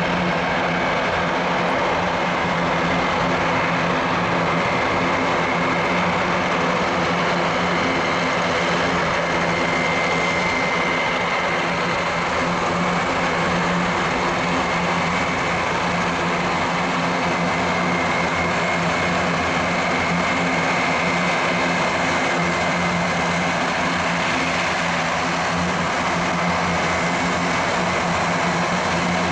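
Airbus A400M's four Europrop TP400-D6 turboprop engines running at taxi power, a steady propeller drone with a deep hum and a high whine held throughout.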